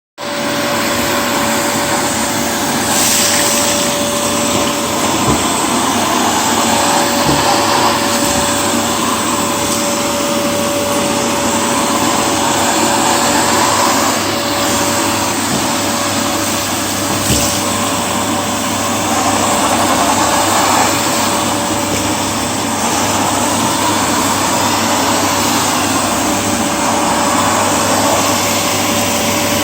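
Candy vacuum cleaner running steadily on a carpet: a continuous rushing hum with one steady motor tone, loudness rising and falling slightly now and then.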